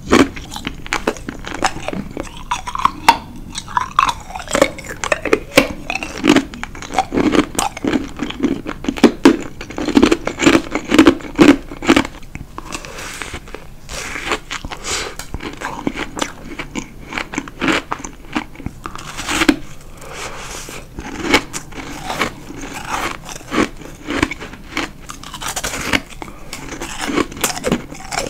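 Ice being bitten and chewed close to the microphone: a clear ice cube and white chunks of ice crunch and crack in quick succession. The crunches are loudest in the first dozen seconds, then come as separate bites.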